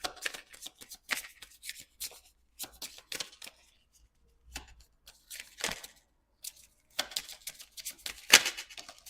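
Deck of tarot cards being shuffled and handled: a run of quick, irregular flicks and taps of card stock, loudest near the end.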